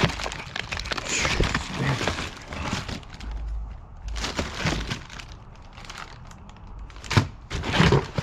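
Items being rummaged through and moved about: irregular clatter, knocks and rustling of objects, with one sharp knock about seven seconds in.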